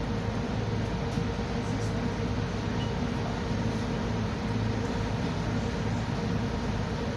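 Motor boat's engine running steadily, heard on board: a constant low drone with an even hum over a wide rushing noise of water and wind.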